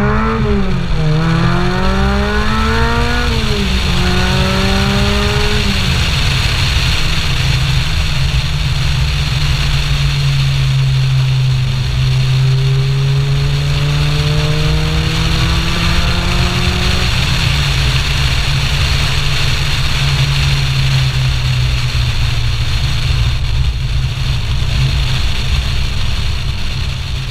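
Supercharged Lotus Elise 111R's 1.8-litre Toyota four-cylinder engine accelerating through the gears, its note climbing and dropping at three upshifts in the first six seconds, then cruising. The steady note climbs slowly and drops again about two-thirds of the way through. Heavy wind rush on the outside-mounted camera runs under it throughout.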